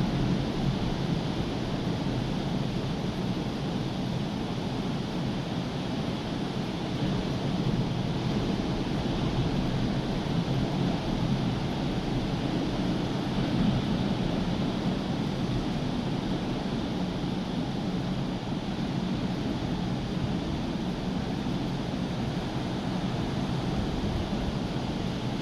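Heavy surf of a rough, hurricane-stirred sea breaking and churning without a pause, with wind buffeting the microphone.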